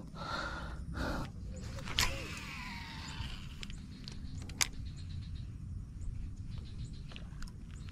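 Daiwa Alphas SV TW baitcasting reel whirring as its spool pays out line on a cast: a click about two seconds in, then a whir that falls in pitch as the spool slows, and a sharp click about a second and a half later, over a low steady rumble.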